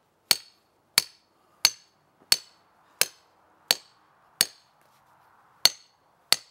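Hammer driving a half-inch steel rebar stake into hard ground: nine sharp, ringing metal-on-metal blows in a steady rhythm about two-thirds of a second apart, with one short pause just past the middle.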